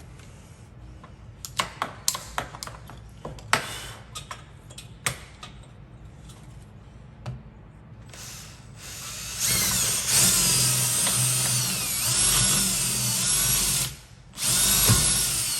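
Clicks and knocks of tools being handled, then a power drill drilling in runs: a brief one, a longer one of about four seconds with a wavering whine, and after a short pause another near the end. The bit is dull.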